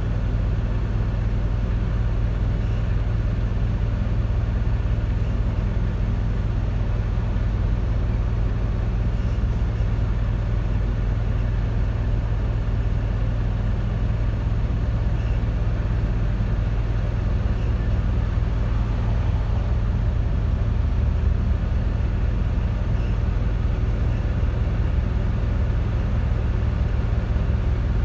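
Freightliner Cascadia semi-truck driving, heard from inside the cab: a steady low engine drone with road noise that does not change.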